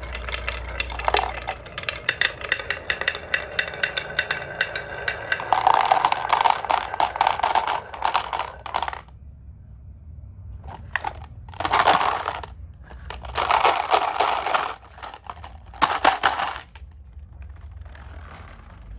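Marbles rolling and clattering down a marble run track, a dense continuous rattle for about nine seconds, then several separate short runs of clatter with brief gaps between them.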